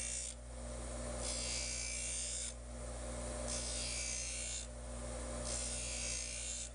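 A DeWalt bench grinder's motor hums steadily while a block plane blade's bevel is ground against the spinning wheel in repeated passes. Each pass is a hissing grind lasting about a second, roughly every two seconds: three full passes and the end of one more at the start. This is the grinding that puts a hollow grind on the bevel.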